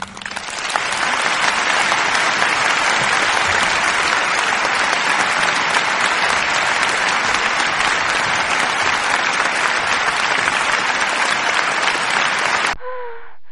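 Steady applause that cuts off suddenly near the end.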